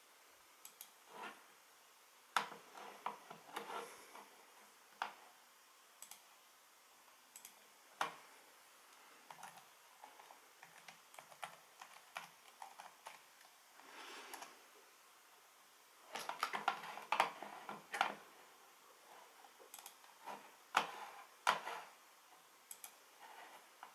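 Typing on a computer keyboard: scattered single key clicks, with a dense run of keystrokes about two-thirds of the way in.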